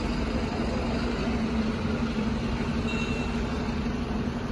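Diesel engine of a large coach bus running close by: a steady low rumble with an even hum.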